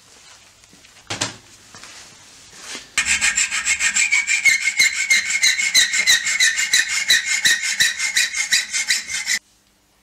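Hacksaw cutting a small piece of scrap steel clamped in a bench vise: fast, even back-and-forth strokes with a steady ringing tone, starting about three seconds in and stopping suddenly near the end. A single knock comes about a second in.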